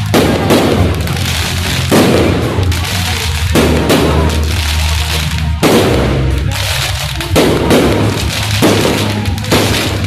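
Fireworks bursting in quick succession, a sharp bang roughly every second with a short trailing crackle after each.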